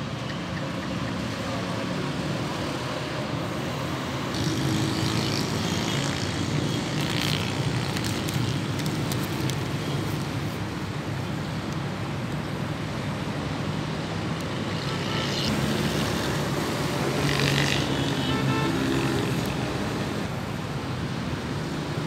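Steady road traffic of cars, vans and auto-rickshaws, with engine and tyre noise that swells louder twice.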